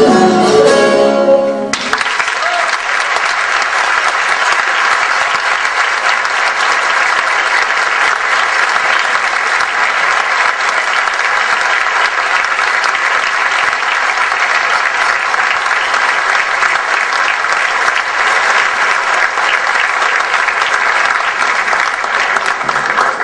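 The last notes of a Turkish folk piece played on bağlama end about two seconds in, and audience applause follows, steady and dense, cutting off abruptly at the very end.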